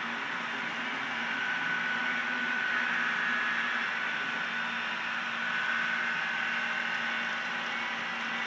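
HO-scale model train locomotives running along the track, a steady whine over a low hum that grows a little louder about a second in.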